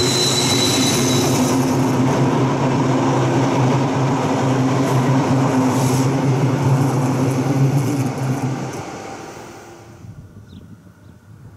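Rhaetian Railway electric train running past: a steady electric hum from the locomotive's drive over the rumble of wheels on rail, with a high wheel squeal in the first second or so. The sound fades away about eight to nine seconds in as the train moves off.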